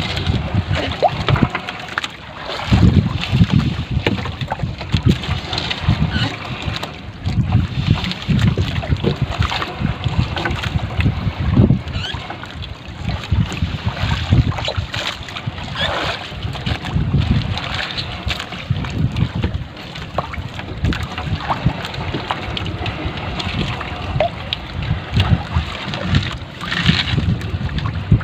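Gusting wind buffeting the microphone over the wash of sea water around a small outrigger boat, with scattered rustles and knocks as a nylon gill net is pulled aboard by hand.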